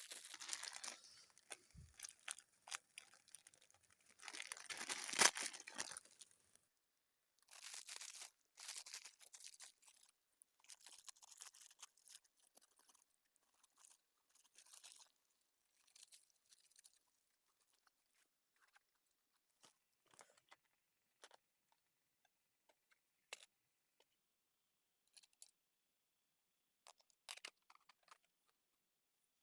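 Rustling, tearing and crunching handling noises, busiest over the first seven seconds with the loudest burst about five seconds in, then thinning to scattered soft clicks and crackles.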